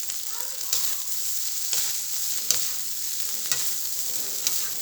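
Fried rice sizzling in a hot pan while being stirred, a steady hiss broken by short spatula scrapes and clicks against the pan about once a second.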